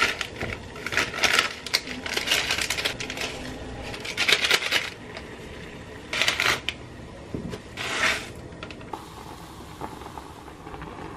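Plastic instant-noodle packaging crinkling and rustling in hand in several short bursts. Near the end it gives way to a steady hiss of the pot of noodles at a rolling boil.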